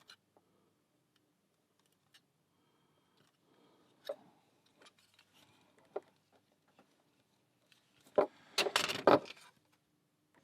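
Metal lock picks and tension tool working a US street letterbox lock: a few faint, scattered clicks, then a louder burst of metal rattling and clatter about eight seconds in.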